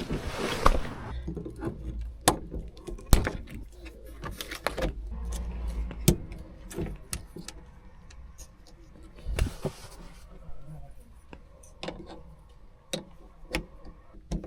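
Scattered sharp metallic clicks and taps, with a couple of brief scraping rustles, from hand work on the hardtop's latch (catch lock) mechanism.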